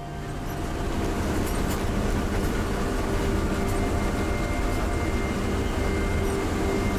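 Converted school bus heard from inside the cab while driving: a steady engine and road drone with a few faint clicks, fading in over the first second.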